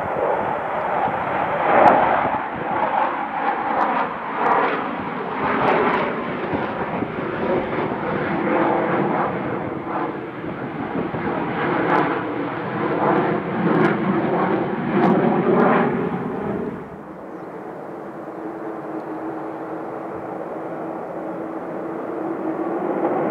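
Loud jet noise from the Avro Vulcan XH558's four Rolls-Royce Olympus turbojets as it flies overhead, swelling and pulsing with a wavering tone. About seventeen seconds in, the sound drops suddenly to a quieter, steadier tone that slowly grows louder near the end.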